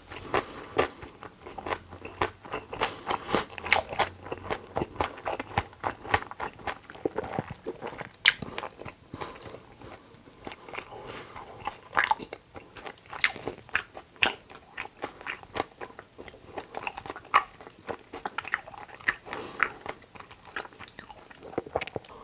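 Close-miked eating: continual chewing and crunching of food, with many small sharp clicks and crackles.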